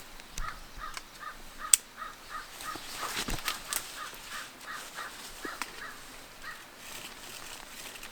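A bird calls a long, even run of repeated harsh notes, about two a second, which stops about two thirds of the way through. A few sharp cracks sound over it, the loudest about two seconds in.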